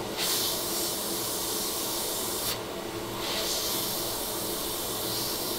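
Hot-air rework station blowing on a phone logic board to solder a small diode in place: a steady airy hiss that drops out briefly about halfway through.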